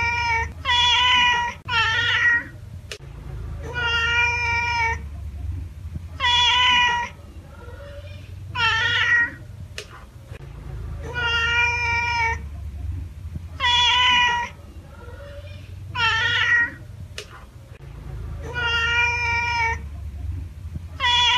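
Domestic cat meowing over and over, about eleven separate meows spaced roughly two seconds apart, several falling in pitch at the end. A low rumble runs underneath.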